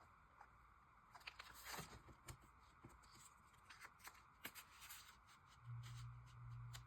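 Faint rustling and crinkling of paper being handled and folded by hand, with scattered soft clicks. A low steady hum comes in near the end.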